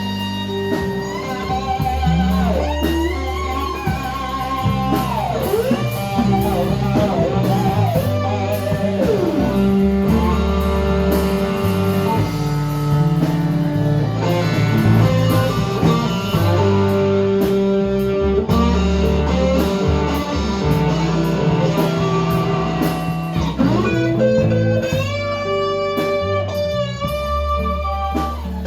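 Live band playing an instrumental blues-rock passage: an electric guitar lead with bent, sliding notes over a steady bass line.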